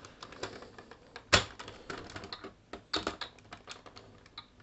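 Plastic toy robot parts clicking and clacking as toy vehicles are pressed and snapped together to combine into the robot, with one loud clack about a second in.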